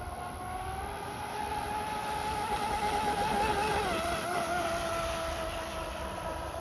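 Fast electric RC boat's motor whine on a high-speed pass: the pitch rises a little and holds, growing louder, then drops sharply about four seconds in as the boat goes by.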